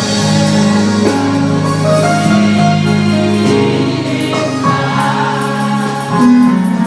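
Gospel music with sustained organ-like chords and singing.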